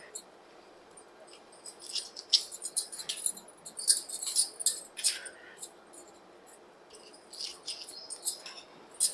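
Green chillies being handled and added to the rasam pot: irregular runs of light, crisp clicks and crackles, busiest in the middle and again near the end.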